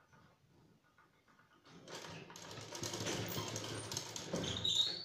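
Domestic sewing machine stitching through layers of cloth. It starts about two seconds in, runs steadily at speed, and stops right at the end.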